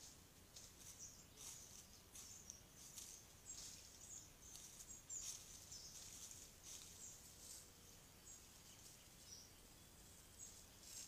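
Faint rustling of dry leaf litter under a foraging male silver pheasant, with short, faint, very high-pitched chirps scattered through.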